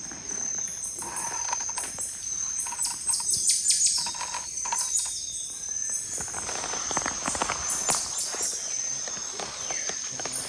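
Rainforest ambience: birds calling over a steady high-pitched insect drone, with runs of rapid clicks in the middle.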